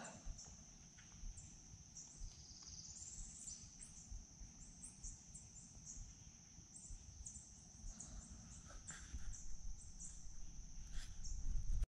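Steady high-pitched insect drone, with short bird chirps and a rising warble about three seconds in. A low rumble grows louder near the end.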